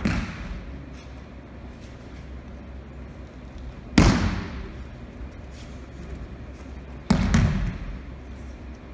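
Three thuds of a person being thrown and slapping down onto tatami mats in aikido breakfalls, each ringing on in a large hall. They come at the start, about four seconds in, and about seven seconds in, and the middle one is the loudest.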